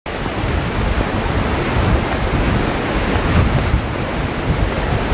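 Ocean surf surging and breaking against the rocky shore, with wind buffeting the microphone in a steady low rumble.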